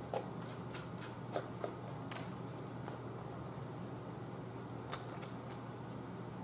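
Quiet eating sounds over a steady low hum: scattered small clicks and crunches from a plastic fork picking at fried rice in a foam takeout box, and from chewing. Most come in the first two seconds, with a couple more near the end.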